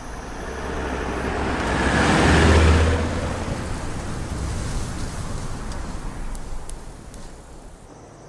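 A car driving fast on a dirt road and passing by: engine hum and the rush of tyres on loose dirt swell to their loudest about two and a half seconds in, then ease off into a steadier rush that fades near the end.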